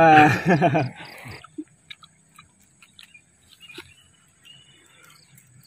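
A child's laughing voice in the first second and a half, then faint crunches of crispy fried leaves being chewed, over a thin, steady, high-pitched chirring of crickets.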